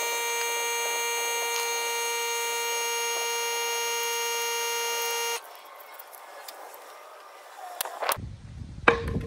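A loud, steady buzzing tone that starts and stops abruptly after about five and a half seconds, then a faint hiss, and a burst of low rumbling noise near the end.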